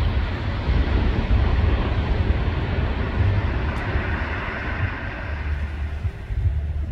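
Wind buffeting the microphone: a steady low rumble that gusts unevenly, with a hiss over it.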